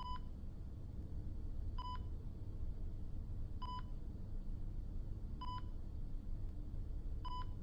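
Short electronic beep repeating steadily, five times about every two seconds, over a low steady rumble.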